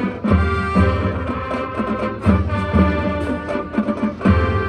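Marching band playing: brass and woodwinds hold full chords, with deep accents from the low instruments and drums about every two seconds.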